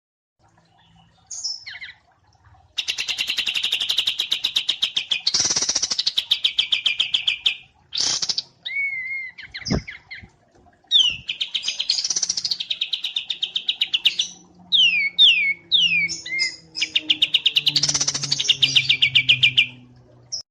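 Small songbirds, wambi mini and kapas tembak, singing: three long, rapid, high-pitched trills of about eight notes a second. Between the second and third trill comes a run of quick, sharp down-slurred whistles.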